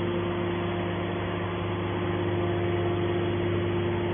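Hydraulic scrap metal baler's power unit running, a steady mechanical hum with a constant low tone.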